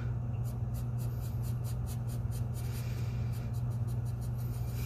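Graphite pencil shading on drawing paper: quick back-and-forth hatching strokes, several short scratches a second, over a steady low hum.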